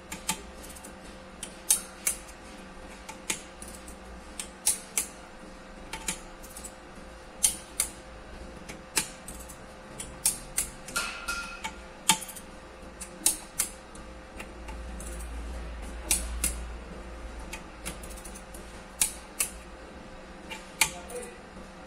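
Sharp metallic clicks and taps from a hand tool working on a bare Hyundai Elantra engine block, coming a few a second at irregular intervals over a faint steady hum.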